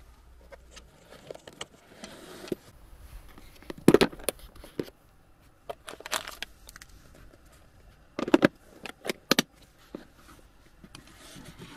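Handling noises: scattered clicks and sharp knocks of objects being moved, with soft rustling between and two louder clusters of knocks, about four seconds in and about eight to nine seconds in.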